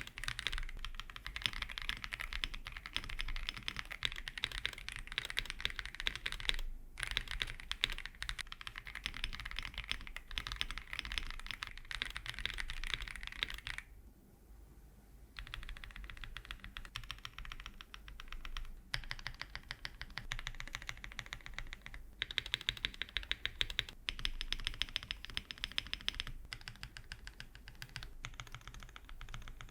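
Fast typing on a mechanical keyboard with thick PBT keycaps, Akko CS Silver linear switches and a polycarbonate plate: a dense run of key clacks. It breaks briefly about seven seconds in, goes quieter for a second or so around the middle, then picks up again with a few short pauses.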